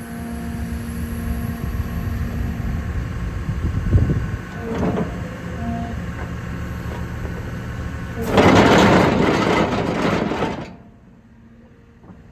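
Excavator with a hydraulic plate compactor attachment: the machine runs steadily with a few steady tones and a sharp knock about four seconds in, then a loud harsh noise lasts about two and a half seconds and cuts off suddenly.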